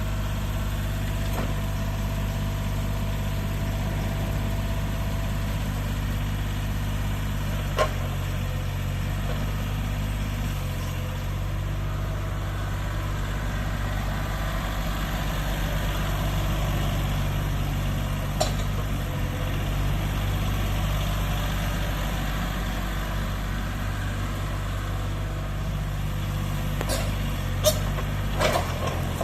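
Yanmar YB1200SS excavator's diesel engine running steadily while the machine is operated, its note shifting slightly partway through. Sharp metallic clanks come once about eight seconds in, once near the middle, and several in quick succession near the end.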